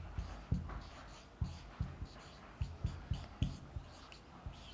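Marker pen writing on a whiteboard: its strokes tap and scrape against the board in short, uneven knocks, about two or three a second.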